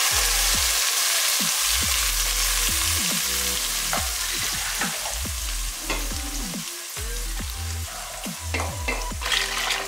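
Hot coconut oil with tempered mustard seeds, dried red chillies and curry leaves sizzling as wet ground coconut paste is poured into the steel pot; the sizzle is loudest at first and dies down as the paste cools the oil. A few light knocks sound near the end.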